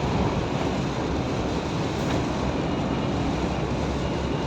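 Steady road noise inside a moving truck's cab in heavy rain: a low engine drone under the hiss of tyres on a wet road and rain on the vehicle.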